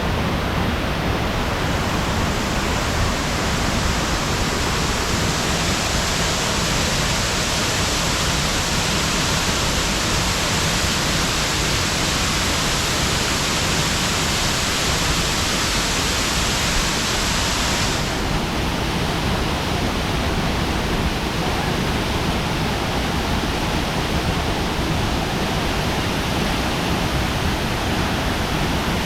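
Duwili Falls, a waterfall about 25 m high, rushing steadily with a loud, even hiss of falling water. The high part of the hiss eases about two-thirds of the way through.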